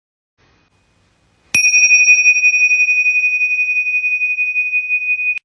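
A single high bell-like ring, struck suddenly about a second and a half in and holding one steady pitch with a slight waver, then cut off abruptly near the end.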